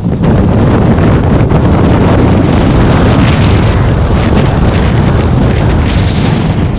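Strong storm wind gusting across the microphone: loud, steady wind noise, heaviest in the low end.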